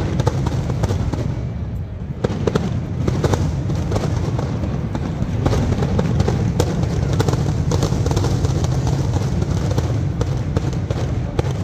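Fireworks going off in quick succession: a dense run of sharp cracks and bangs over a constant low rumble.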